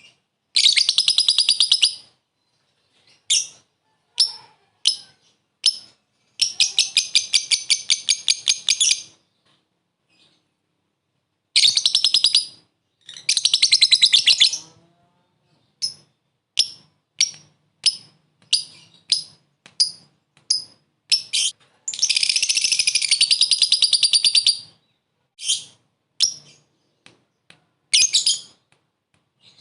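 Lovebird ngekek: several rapid, high-pitched chattering trills, each lasting a second or two, with single sharp chirps between them.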